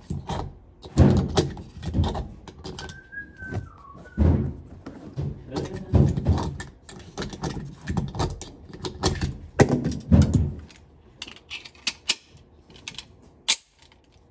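Muffled pistol shots at a shooting range, about ten of them over ten seconds, each a sharp loud crack. Lighter clicks follow, then one more sharp report near the end.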